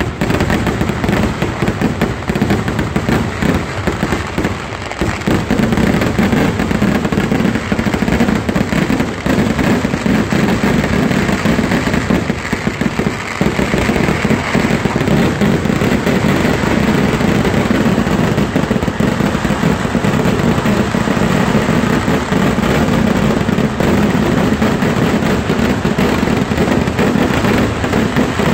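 Massed fireworks and firecrackers going off in a dense, unbroken barrage, the bangs following so closely that they merge into one continuous crackle. The barrage eases briefly about four and thirteen seconds in.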